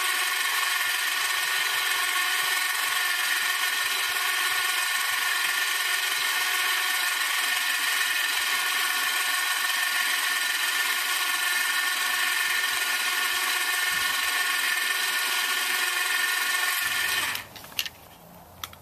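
Superwinch Winch-In-A-Bag's 12-volt electric motor running under load with a steady whine, reeling in its cable to drag a wooden post of about 30 pounds, powered from a portable jump starter. It cuts off suddenly about seventeen seconds in, followed by a few sharp clicks.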